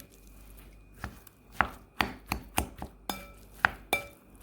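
A utensil knocking against a bowl about eight times at an uneven pace while seasoned cooked rice is mixed, some knocks ringing briefly.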